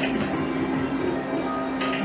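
Electronic slot machine playing its synthesized game music with ticking, and a short sharp click near the start and another just before the end.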